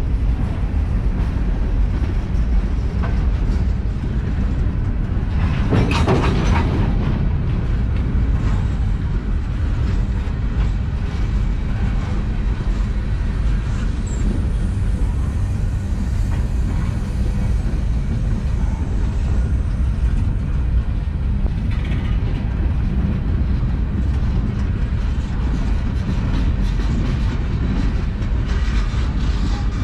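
Freight cars of a long manifest train rolling slowly past on the rails: a steady low rumble of wheels on track, with a brief louder burst of noise about six seconds in.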